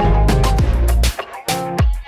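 Background music with a bass line, guitar and a steady drum beat, dropping out briefly about a second in.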